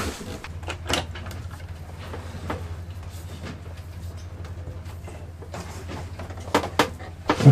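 Wooden cupboard doors and cabinetry knocking and clattering as cables are handled inside them, a few sharp knocks with the loudest cluster near the end, over a steady low hum.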